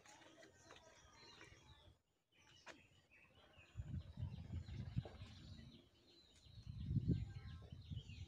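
Small birds chirping and calling in a steady scatter of short high notes. Two bursts of low rumble on the microphone, about four and seven seconds in, are louder than the birds.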